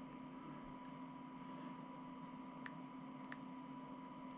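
Steady low electrical hum with a faint higher whine, and two faint ticks about two and three seconds in.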